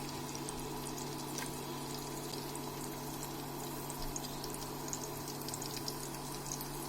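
Chopped onion and whole spices sizzling in hot ghee and soybean oil in a frying pan: a steady frying hiss with scattered small crackles and pops.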